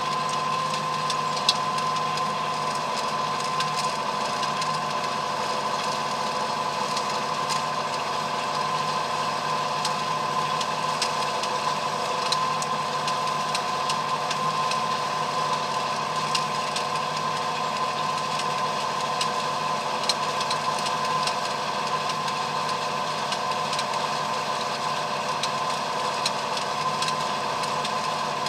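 Ford 7610 tractor's diesel engine running steadily under load while a PZ 300 rotary rake rows up cut grass, with a steady whine and scattered light clicks.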